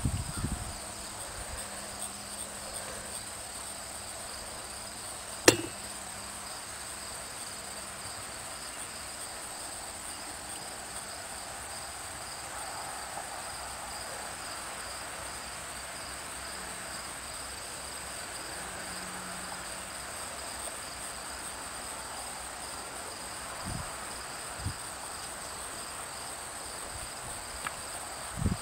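Insects chirring steadily at a high pitch, two even high tones without a break. A single sharp click about five and a half seconds in, and a couple of soft knocks near the end.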